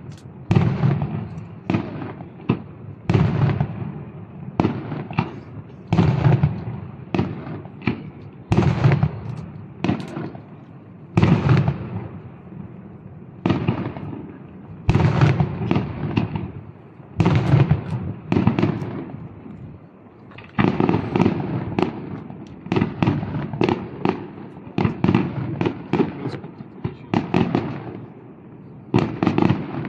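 Fireworks display: aerial shells bursting one after another, about one or two bangs a second, each trailing off in a rolling echo. The bangs come quicker and more crowded for the last third or so.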